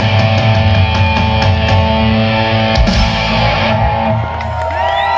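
Live heavy rock band playing loudly, with distorted electric guitars, bass and drums. The drum strokes stop about three seconds in, leaving held guitar notes ringing, with rising pitch sweeps near the end.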